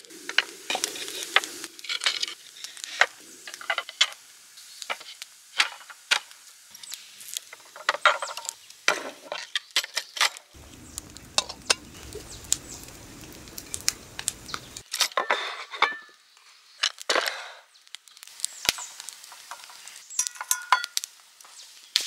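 A portable gas camp stove being set up by hand: a string of sharp clicks, clinks and knocks as its metal and wooden parts and a gas canister are handled and fitted, with a low steady rumble for about four seconds midway.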